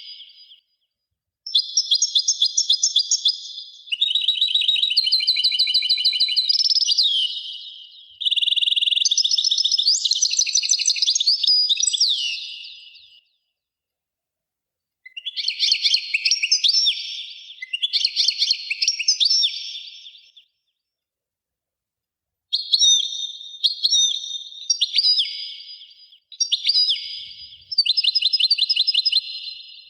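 Songbird singing long, fast trilled and warbled phrases, with gaps of complete silence between them.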